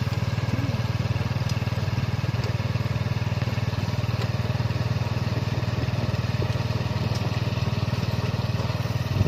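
Tuk tuk's engine running steadily as it travels along the road, a constant low drone.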